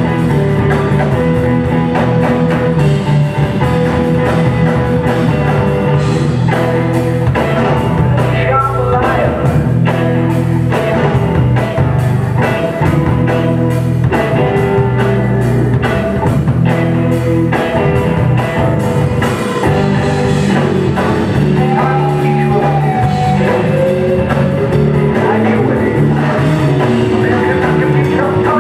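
Rock band playing live and loud, with drums and guitar.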